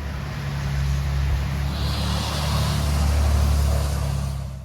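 A motor vehicle running, with a steady low engine hum and a rush of noise that swells to a peak about three seconds in and then eases off. It cuts off suddenly at the end.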